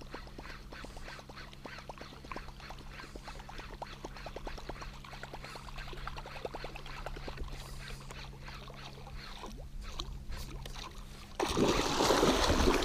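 Walk-the-dog topwater musky bait being twitched across calm water: a long, even run of short splashing clicks, several a second. A little over eleven seconds in, a musky strikes the bait at the boat with a sudden loud splash and thrashing.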